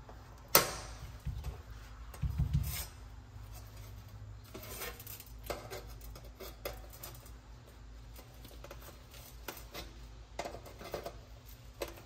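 Metal snips clipping the leftover tabs off a stainless steel louvered vent end cap: scattered sharp metallic snips and clinks, the loudest about half a second in, with a dull knock about two and a half seconds in.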